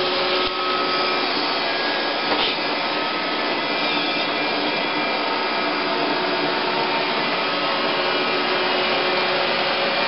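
iRobot Roomba 510 robot vacuum running on carpet: the steady whir of its vacuum motor and brushes, with a faint steady whine over it.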